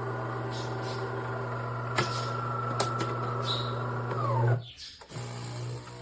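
De'Longhi Magnifica Plus fully automatic espresso machine running: a steady mechanical hum, with a couple of sharp clicks, that winds down and stops about four and a half seconds in. After a short pause a lower hum starts up.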